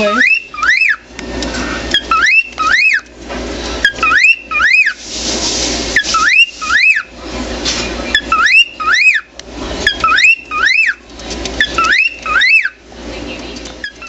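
Cockatiel giving short, sharp whistled chirps, each one a quick rise and fall in pitch, mostly in pairs and repeated over and over. Stretches of scratchy, hissing noise come between some of the chirps.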